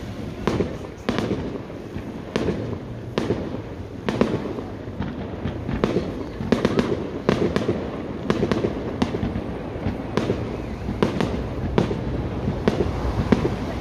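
Aerial fireworks shells bursting in an irregular run of sharp bangs, at times several within a second.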